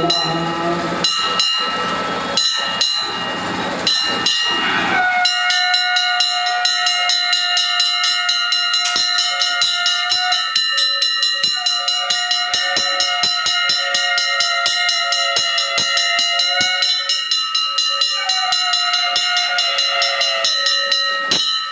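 Aarti bells ringing rapidly and continuously, with heavy drum-like beats in the first few seconds. From about five seconds in, a high steady tone joins them, held for about five seconds at a time, three times, with short breaks between.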